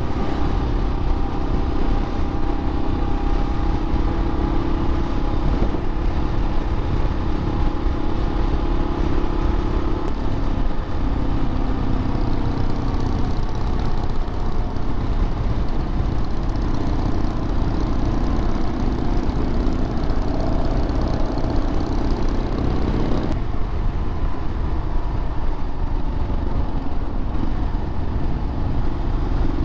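Motorcycle engine running steadily at road speed, with wind and road rumble. The engine note shifts twice, about a third of the way in and again about three-quarters through.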